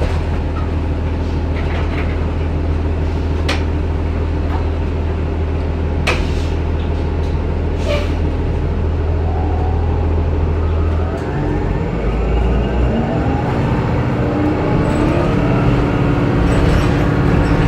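A 2009 Orion VII Next Generation hybrid bus heard from inside: first the steady low drone of its Cummins ISB diesel, with a few short rattles. About eleven seconds in the drone breaks up, and the BAE HybriDrive electric drive gives several rising whines as the bus accelerates.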